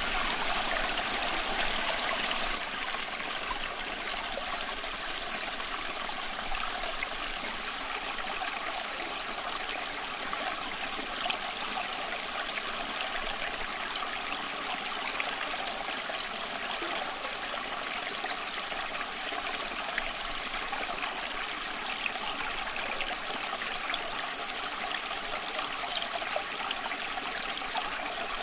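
Small stream running over stones, a steady babbling and trickling flow with small splashes, a little louder for the first couple of seconds.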